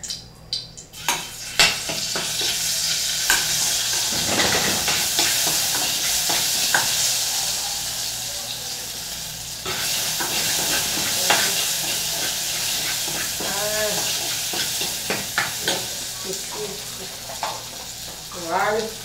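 Garlic frying in hot oil with a steady sizzle, while a spoon stirs it, clicking and scraping against the pan.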